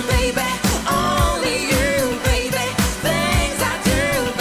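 A woman singing a pop song live into a microphone, her voice wavering in vibrato, over a band with a steady drum beat.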